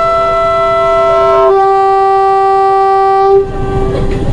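Locomotive air horn sounding one long blast as the train departs. It is a chord of several tones that changes to a different chord about a second and a half in and cuts off sharply near the end.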